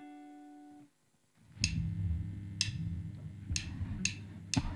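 Math rock band opening a song live in a small studio: sustained low bass and guitar notes with sharp drum-kit hits about once a second. A brief steady tone sounds in the first second, before a short gap.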